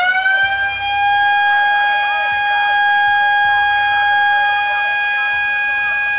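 Police siren that finishes its climb in pitch right at the start, then holds one steady high pitch with a long row of overtones.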